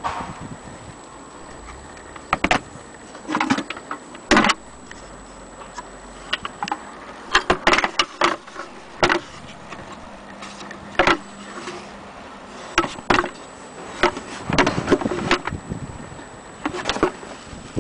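Handling noise from the wooden case of an antique sewing machine: irregular knocks, taps and scrapes of wood as it is moved and turned, coming in short clusters.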